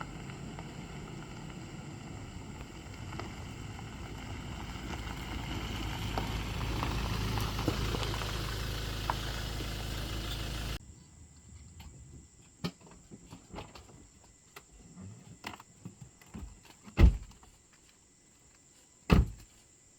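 Steady rumble of a vehicle running, growing louder, then cut off abruptly about eleven seconds in. After that it is quiet, with scattered light knocks and two loud thumps near the end.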